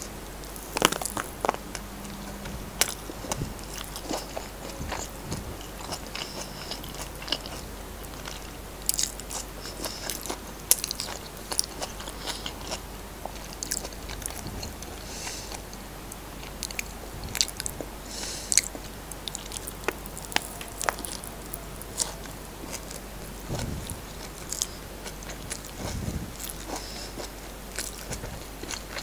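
Close-miked chewing of fried rice and corned beef eaten by hand, with irregular wet mouth clicks and smacks throughout.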